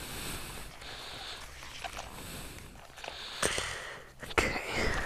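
Rustling and scraping of nylon webbing handled close up as a seatbelt strap is worked by hand, with a couple of sharp clicks about three and a half and four and a half seconds in.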